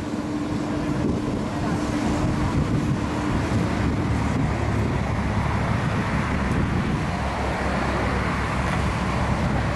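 Steady low engine rumble with wind noise on the microphone; the rumble grows stronger about five seconds in.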